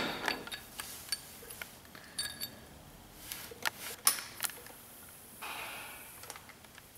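Scattered metallic clicks, clinks and knocks of bolts and hand tools being handled at an open differential housing, with one short ringing clink about two seconds in and another around four seconds.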